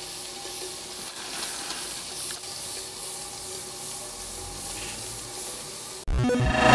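Steam hissing from the jet tubes of a homemade aeolipile (Hero's steam engine), a tin can of boiling water spinning over a flame, with faint steady tones under the hiss. About six seconds in it cuts off abruptly and louder synthesizer music starts.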